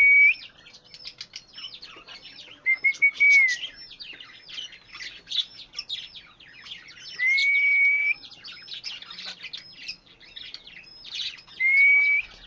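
Pet parrot chirping and squeaking rapidly, with long, even whistles about a second long repeating every few seconds.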